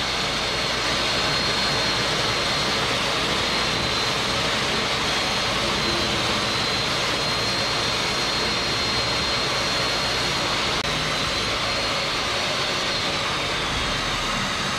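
Jobsite table saw running steadily with a faint high whine while it rips a sheet of polystyrene foam into strips, then shutting off suddenly at the end.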